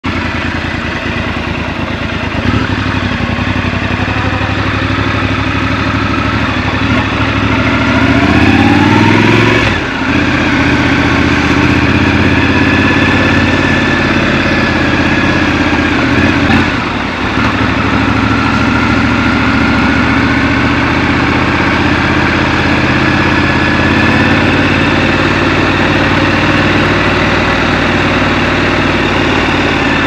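Scrambler motorcycle engine running under way. The note rises and is loudest around eight to nine seconds in, then drops off briefly twice, near ten and seventeen seconds.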